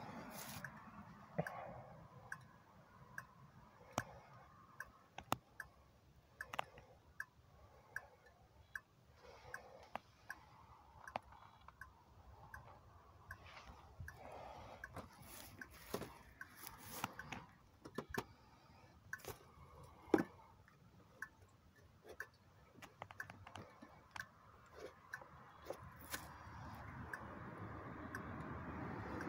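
Faint irregular clicks and ticks beside a scooter's rear wheel just after a burnout, with a softer tick repeating about twice a second; the engine is not running. A fuller noise swells near the end.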